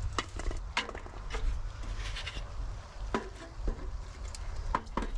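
A few light knocks and clicks as the copper shingled roof is handled and fitted back onto a wooden tube bird feeder, over a low steady rumble.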